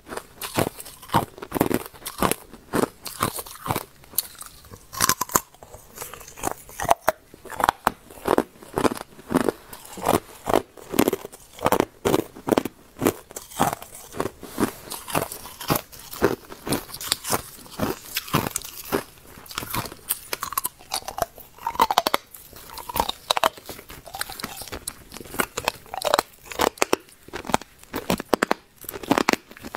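A person biting and chewing hard, clear ice cubes: a dense run of sharp cracking crunches, several a second.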